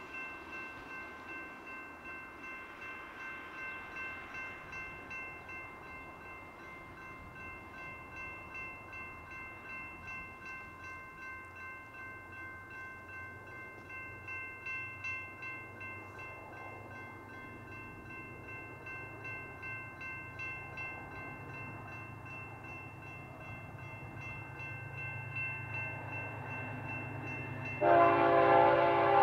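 Diesel locomotives of an approaching BNSF intermodal freight train, their low rumble building, under a steady high whine of several tones. Near the end the lead locomotive sounds its air horn, loud and sustained.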